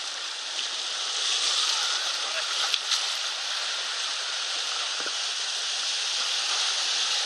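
Rushing whitewater in a concrete slalom channel, a steady hiss of running and breaking water. Two short knocks come about three seconds in.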